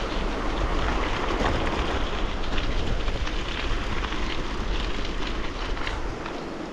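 Bicycle tyres rolling fast over loose gravel, with scattered small crunches and pings of stones, under steady wind noise on the microphone.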